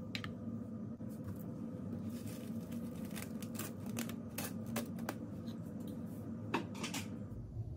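Plastic cling film over a bowl crackling in a run of light clicks, loudest about six and a half seconds in, over a steady low hum.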